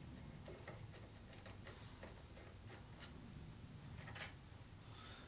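Faint, irregular ticks and clicks of a screwdriver working the battery's negative terminal screw, with one sharper click about four seconds in.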